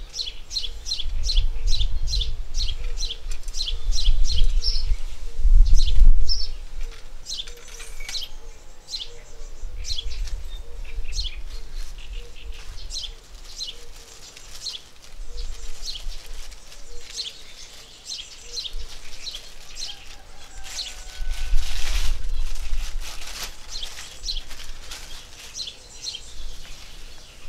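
A small bird chirping over and over, quick short chirps about three a second at first and sparser later, over bursts of low rumbling on the microphone.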